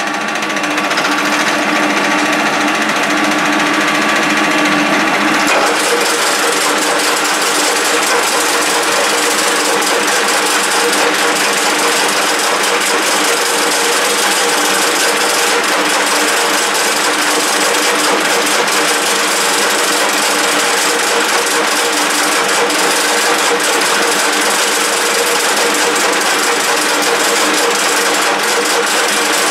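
1K62 engine lathe running steadily, a dense mechanical hum and rattle of its geared headstock with several steady tones. About five and a half seconds in, the set of tones changes.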